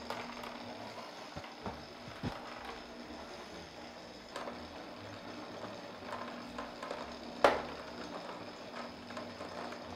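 Kenwood stand mixer running steadily, its dough hook kneading a heavy, stiff brioche dough, with a few faint knocks; the loudest comes about seven and a half seconds in.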